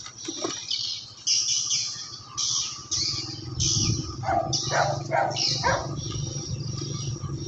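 Birds chirping and calling in a quick run of short high notes, over a faint low hum from riding along on an electric bicycle.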